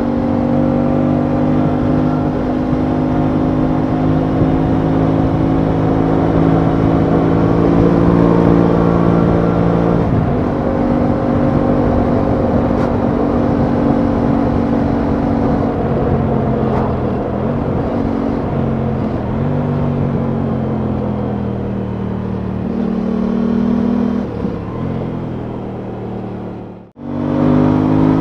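Aprilia Tuono 660's parallel-twin engine running under way at road speed, its pitch holding, shifting about ten seconds in, then easing down and rising again, with a rough rumble of wind underneath. Near the end the sound drops out abruptly for a moment.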